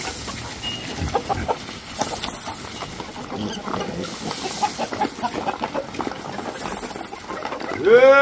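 Farmyard livestock: scattered short clucks, grunts and rustling, then right at the end a loud, long moo from a bovine starts, rising in pitch before it levels off.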